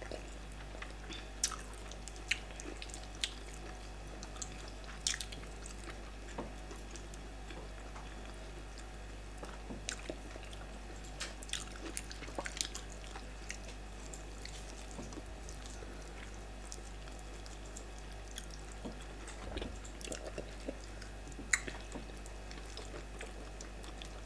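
Close-up eating sounds of fufu and soup eaten by hand: scattered wet mouth smacks, chewing and small clicks, irregular and soft, over a steady low hum.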